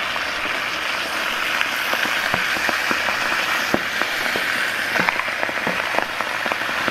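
Water being poured from a bottle into a cauldron of meat, onions and stones cooking over a fire: a steady splashing hiss with scattered small pops and ticks, the pops growing more frequent in the second half.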